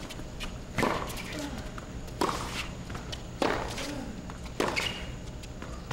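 Tennis rally on a hard court: the ball is struck back and forth, with sharp racquet hits and bounces about every second, and a few short sneaker squeaks.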